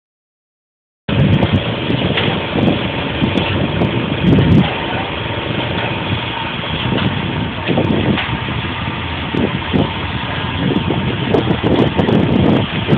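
Steady engine-like running noise with irregular low rumbles, starting abruptly about a second in.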